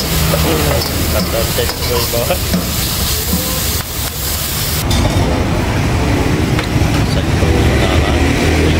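Metal spatula scraping and clacking against a carbon-steel wok while food sizzles in hot oil during stir-frying. About five seconds in, the sizzling and clacks fall away, leaving a low rumble and faint voices.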